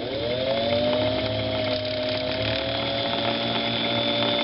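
White 77MG rotary sewing machine's friction-drive motor spinning up quickly and running with a steady whine, turning the handwheel freely with the stitching mechanism unhooked, as for winding a bobbin.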